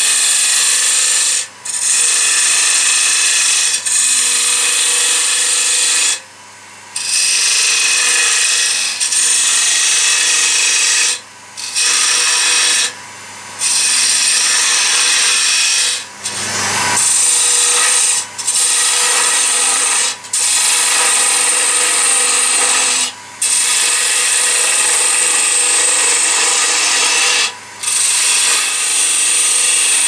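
Woodturning gouge cutting into a wood blank spinning on a lathe: a loud, steady hiss of shavings being cut, with the lathe motor humming underneath. The cut breaks off briefly about eight times as the gouge is lifted from the wood, while the hum carries on.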